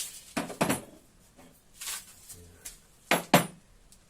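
Metal hand tools and engine parts clinking and clanking as they are handled, about five sharp knocks, two of them close together past the three-second mark.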